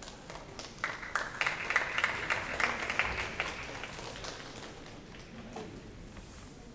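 Spectators clapping briefly as a karate competitor takes her place. The clapping dies away after about four seconds.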